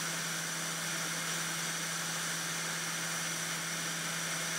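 Hot air rework station blowing steadily on a circuit board to melt the solder under a burned charger IC: an even, constant hiss with a low hum underneath.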